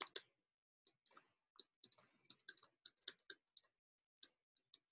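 Faint, irregular clicks and taps of a stylus on a tablet screen as an equation is handwritten, several a second.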